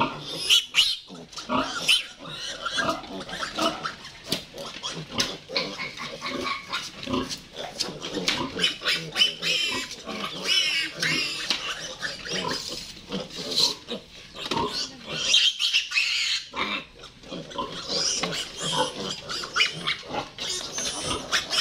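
Piglets squealing over and over in high-pitched cries as they are held upside down and injected, with a short lull about three-quarters of the way through.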